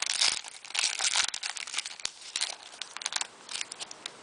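Hockey card pack wrappers being crinkled and torn open by hand, making a dense crackling. It is loudest in the first second and a half and thins out near the end.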